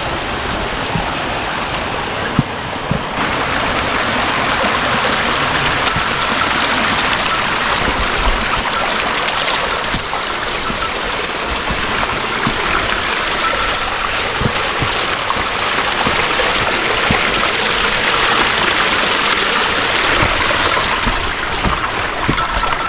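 Mountain stream water rushing over rocks, a steady dense noise that grows fuller about three seconds in.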